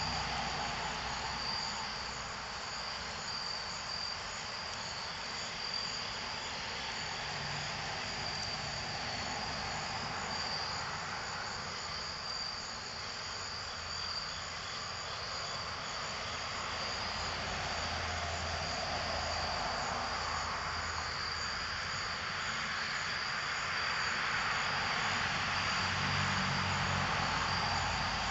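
Crickets chirping in a steady, high, pulsing trill, over a broad rushing noise that swells and fades and grows louder toward the end.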